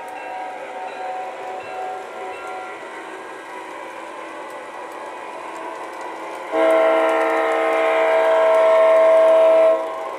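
Proto-Sound 2.0 sound system of an O gauge U30C model diesel locomotive playing its diesel engine sound through the model's small speaker, with one steady horn blast of about three seconds starting about six and a half seconds in, the loudest sound here.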